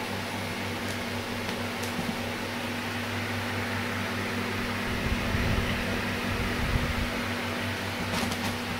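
Steady low hum with hiss, with a few low rumbling knocks about five to seven seconds in.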